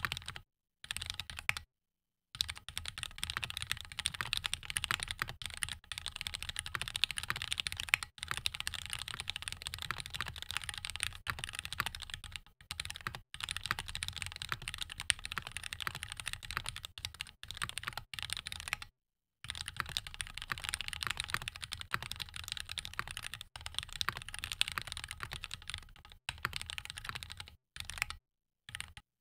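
Keychron Q1 Knob gasket-mounted mechanical keyboard being typed on quickly and steadily, a dense run of key clacks with a few brief pauses, about two seconds in and near the middle.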